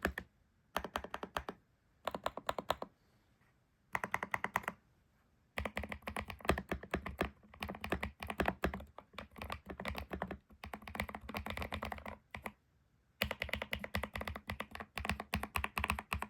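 James Donkey J2 mechanical keyboard being typed on, modded with one layer of tape on the PCB, HMX Caramel Pudding switches and YDMK keycaps. A few short bursts of keystrokes with pauses between, then a long run of fast continuous typing, a short break, and more typing near the end.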